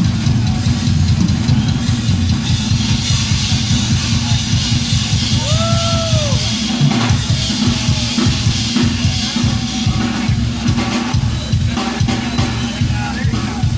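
Live rock drum solo on a full drum kit: rapid, driving double bass drum strokes under crashing cymbals and snare hits, loud and unbroken. A single rising-and-falling shout or whistle from the crowd cuts through about six seconds in.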